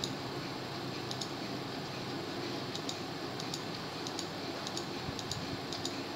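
Computer mouse left button clicking: a dozen or so light, irregular clicks, some in quick pairs, over a steady low hum.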